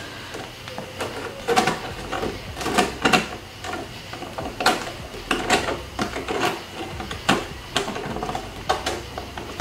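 Clear plastic panels of a stackable shoe box being handled and pushed into each other's grooves: a string of irregular plastic clicks and knocks.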